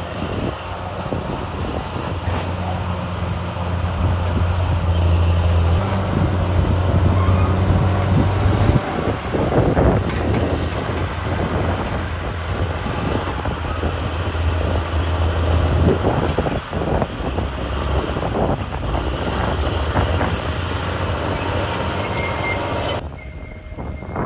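Caterpillar D6R crawler bulldozer working: its diesel engine runs hard under load, with the note swelling in two long stretches, over the constant clanking and clatter of the steel tracks.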